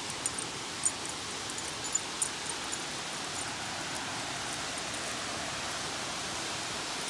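Lower Calf Creek Falls, a tall waterfall, rushing steadily into its pool as an even roar of falling water. A few sharp light clicks stand out in the first few seconds.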